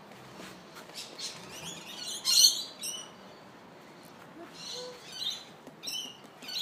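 Small birds chirping in short, high-pitched bursts, loudest about two and a half seconds in and again near the end.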